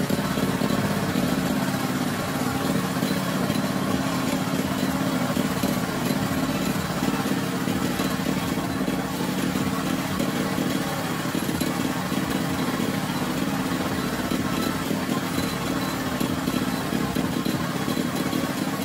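Small engine of a water pump running steadily at constant speed.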